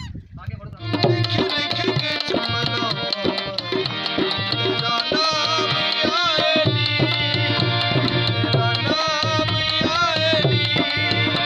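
Harmonium and hand drums, a tabla pair and a dhol, playing folk music together. The music comes in about a second in: sustained harmonium chords under a brisk drum rhythm, with a wavering melody line over them.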